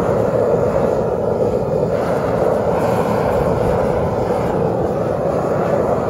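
Gas burner of a metal-melting furnace running with a steady, even rush while aluminum melts in the crucible.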